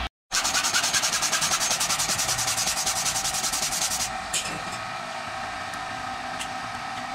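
Hacksaw cutting through a metal piano hinge: quick, even strokes, about six a second, which stop about four seconds in. A steady background hum and a couple of light clicks remain after.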